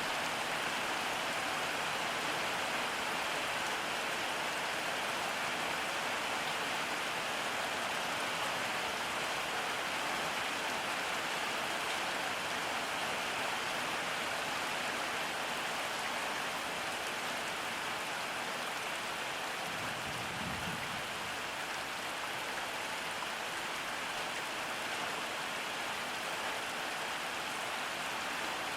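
Steady rain falling, an even hiss of drops with no letup. About two-thirds of the way through comes a brief low rumble lasting a second or so.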